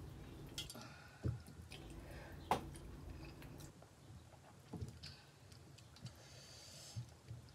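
Fingers squishing and mixing wheat-flour dhido with mutton curry gravy in a metal plate, soft wet squelches with a handful of small sharp taps of the fingers against the plate.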